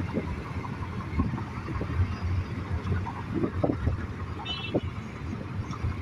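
Steady low rumble with wind buffeting the microphone, and a brief high-pitched chirp about four and a half seconds in.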